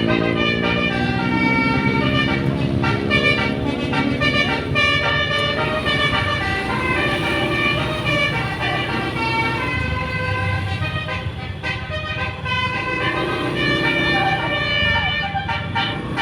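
Tour bus's telolet horn, a multi-tone air horn, playing a quick melody of short stepped notes over the low running of the bus engine.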